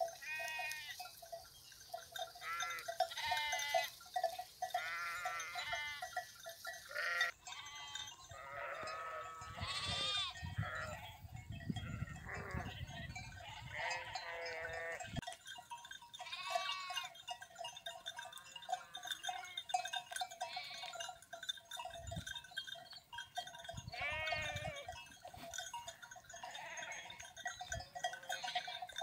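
A flock of sheep bleating, many short calls from different animals overlapping and repeating all through.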